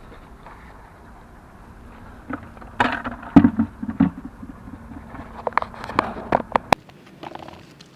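An irregular series of sharp knocks and clatters, as of hard objects being handled and set down, with a low hum under the first cluster.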